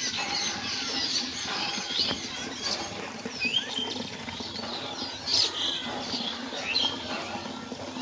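Several birds chirping and whistling, with short rising and falling calls scattered through, the loudest a little after halfway.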